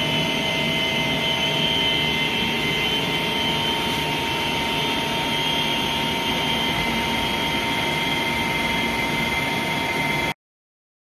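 Plastic recycling extruder line with a self-cleaning screen changer running: a steady machine hum carrying a constant high-pitched whine. It stops abruptly near the end.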